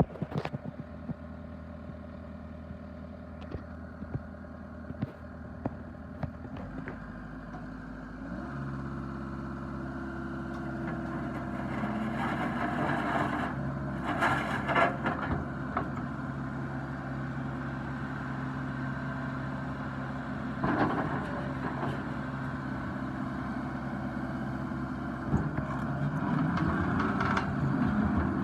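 John Deere 333E skid steer's diesel engine running steadily, stepping up to a higher, louder steady speed about eight seconds in. Scattered knocks and rattles come through around the middle.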